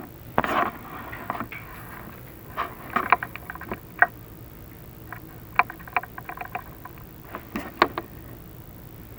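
Irregular clicks, knocks and short scrapes from a chimney inspection camera rig being worked in a masonry flue, with a louder scrape about half a second in and a quick run of small clicks in the middle.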